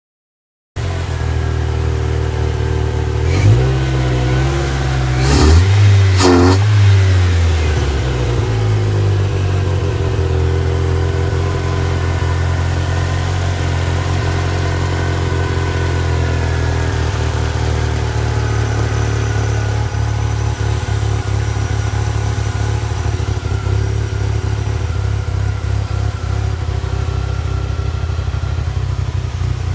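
Ford Ranger 2.3-litre four-cylinder engine running. It is revved twice in the first several seconds, the second time the loudest, then drops back to a steady idle. The idle is rough and sputtering, a fault that new plugs, wires, coil pack, PCV valve and throttle position sensor have not cured; the owner has found a loose vacuum line.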